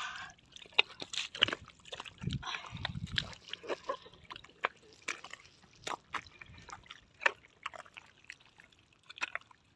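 Shallow muddy water splashing and dripping, with scattered sharp slaps and clicks and a couple of low thuds a little after two seconds, as fish are caught by hand.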